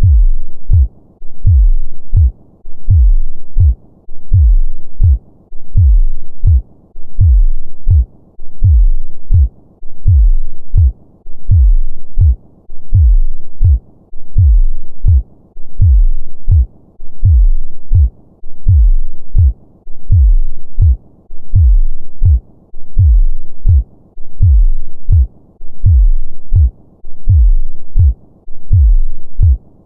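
Human heartbeat at a normal resting rhythm: a steady lub-dub of paired low thumps, about one beat a second.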